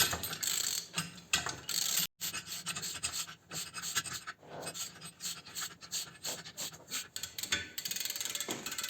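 Ratchet wrench clicking in quick runs as the bolt of a pulley puller is wound in to draw a tight pulley off an engine shaft. There is a brief break about two seconds in.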